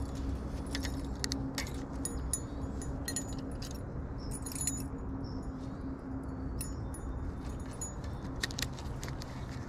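Light metallic clicks and jingles, irregular and scattered, from fishing tackle: a spinnerbait's blades and wire being handled and cast, and the reel being worked. A steady low hum runs underneath.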